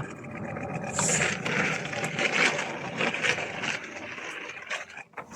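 Kick scooter rolling over rough pavement: a continuous rolling rumble with rattling and scraping, easing off near the end.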